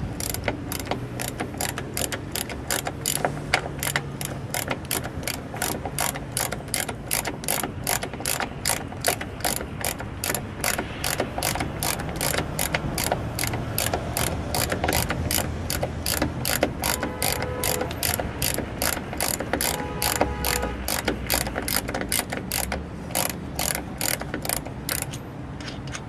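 Ratchet wrench clicking steadily, about three clicks a second, as it backs the factory nut off an outboard motor's mounting bolt.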